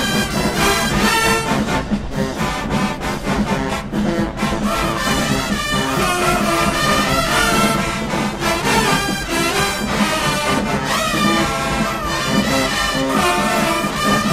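Marching band playing: brass horns over a drumline, with frequent drum strokes.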